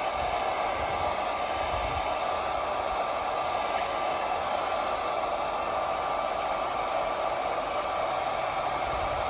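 Handheld hair dryer running steadily, a constant rush of air, blowing hot air onto an ice cube to melt it.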